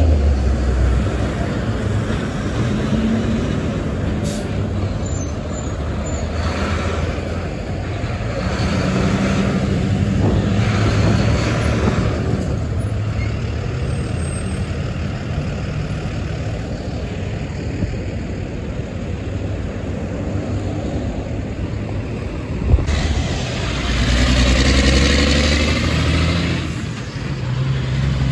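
Heavy diesel trucks and city traffic passing through an intersection: a steady low engine rumble that rises and falls as vehicles pull away. About 23 seconds in, a sharp click is followed by a loud hiss lasting a few seconds.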